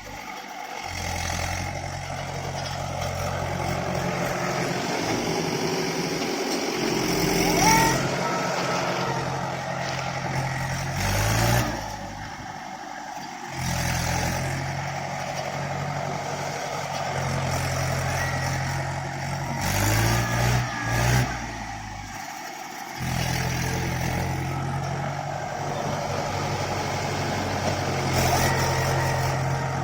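Diesel tractor engine running under load and revving up at times, with a few abrupt breaks where the sound cuts and comes back.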